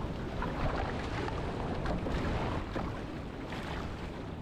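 Wind buffeting the microphone over a rough, choppy sea, with irregular splashes of water against a small boat's hull.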